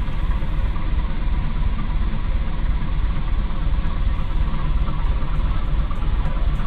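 A small ferry's engine running at a steady rumble with an even low throb, heard from on board.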